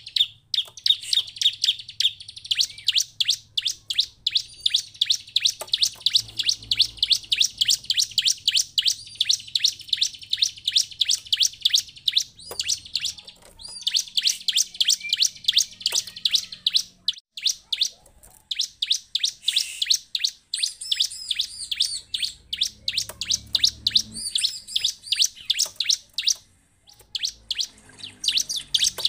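Bar-winged prinia (ciblek) calling: rapid, repeated high chirps, several a second, with brief pauses about halfway through and again near the end.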